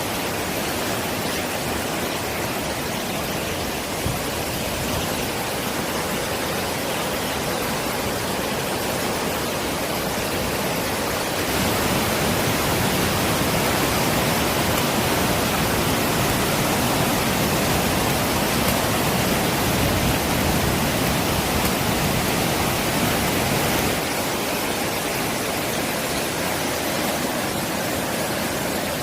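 Mountain stream in flood after torrential rain, the swollen torrent rushing steadily. It grows a little louder about a third of the way in and eases back near the end.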